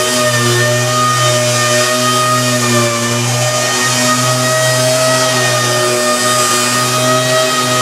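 A motor running steadily: a low hum with a ladder of even overtones above it, wavering slightly but not changing speed.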